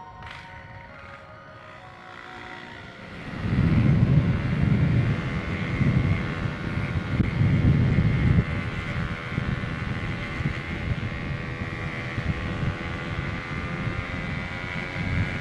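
Yamaha RX-King two-stroke motorcycle engine running steadily while riding, with heavy wind buffeting on the microphone that sets in about three seconds in and stays loud.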